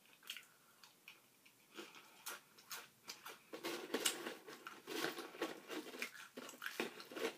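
Close-up chewing of crunchy chips with cheese dip: a string of small, irregular crunches and wet mouth sounds.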